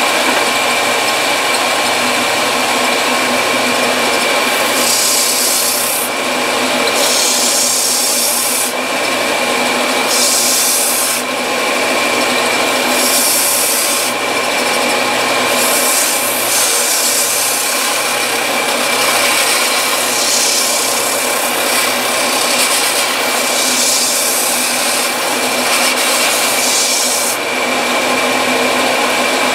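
Upright belt sander running with a steady motor whine while a recoil pad and wooden gunstock are ground against the belt. A rasping hiss swells and fades every second or two as the work is pressed to the belt and eased off.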